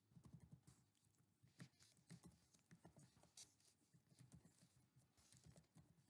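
Faint typing on a computer keyboard: quick, irregular keystrokes with short pauses.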